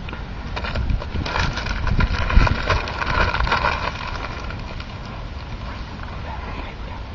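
Plastic wrapper of an ice cream bar crinkling as it is handled close to the microphone, loudest from about one to four seconds in, over a low rumble of wind and handling on the microphone.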